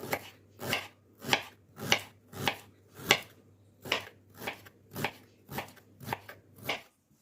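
Knife chopping food, about a dozen even strokes a little under two per second, stopping near the end.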